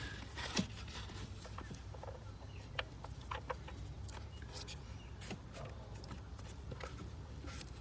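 Faint scattered clicks and rubbing of gloved hands pushing a PCV valve into its port on an engine, over a steady low hum.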